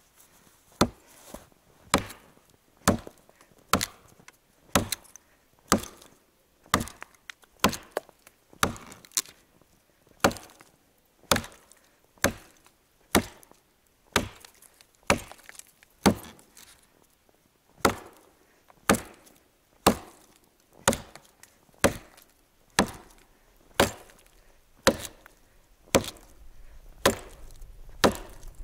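Forged Toporsib "Burunduk" axe chopping into a felled tree trunk, bucking it into a log: a steady series of sharp blows into wood at about one stroke a second.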